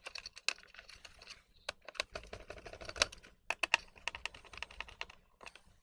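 Temporary screws being put into the plastic casing of a Revitive foot-circulation machine by hand: a run of irregular small clicks, taps and rattles of screws, driver and plastic parts being handled.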